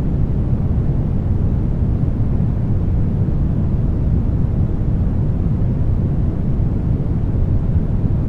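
Steady brown noise: an even hiss, strongest in the low end and thinning toward the highs, with no changes.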